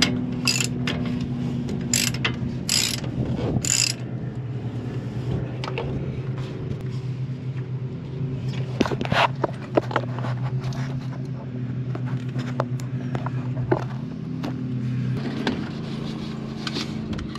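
Hand socket ratchet clicking in bursts as it tightens the lower mounting bolt of a new Bilstein shock absorber on a Ford F550 front axle. A steady low hum runs underneath and stops shortly before the end.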